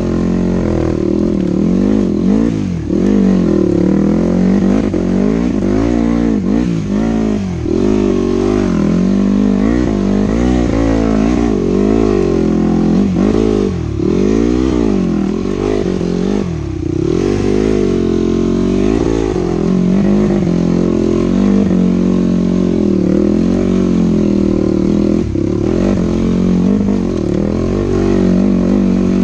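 Dirt bike engine running under constant throttle changes, its pitch rising and falling every second or two as it revs up and drops back.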